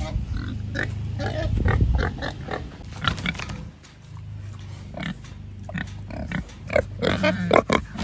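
Young Yorkshire–Berkshire cross sows grunting up close, a run of short grunts and snuffles that comes thickest near the end, over a low rumble in the first couple of seconds.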